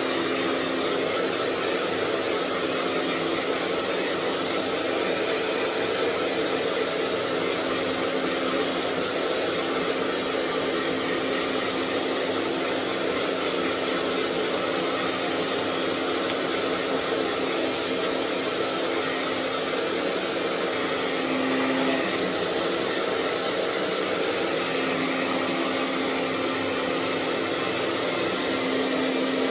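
Hair dryer running steadily, a constant rush of blown air with a steady low hum under it. The sound shifts slightly for a moment about two-thirds of the way through, then runs on unchanged.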